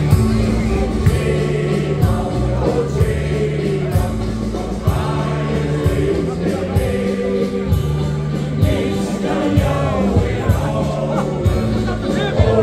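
Male shanty choir singing with a live band of drums, bass and electric guitar. The drum beat comes about once a second.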